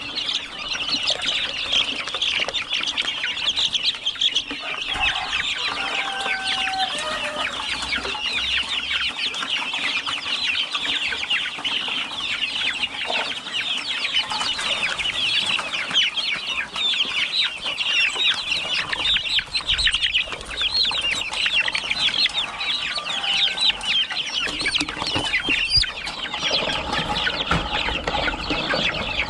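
A flock of chickens calling continuously, a dense chatter of many short, high-pitched calls overlapping without a break.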